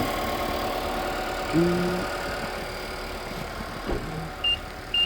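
2020 Nissan Sentra's four-cylinder engine idling steadily, with two short high beeps near the end from a handheld battery tester as its result comes up.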